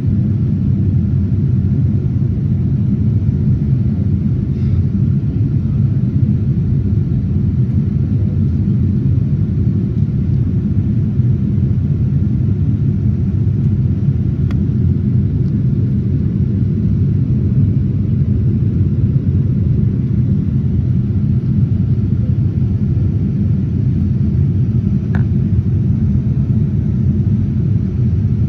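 Steady low rumble of a Boeing 787-9's cabin noise, engines and rushing air heard from a window seat over the wing, as the airliner descends through cloud.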